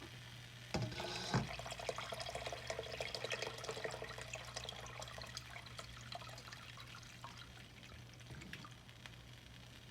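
Water pouring and splashing, with two knocks about a second in; it thins out into scattered drips.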